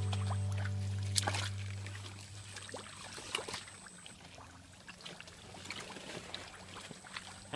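Background music fades out over the first couple of seconds. Then comes light, irregular splashing and sloshing of shallow muddy water with a few small clicks, as hands grope through the mud for snails.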